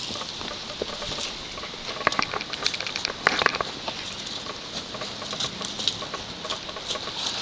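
Leaves and twigs rustling and scraping as horses and riders push through dense brush, with scattered sharp twig snaps, several in quick succession about two to three and a half seconds in.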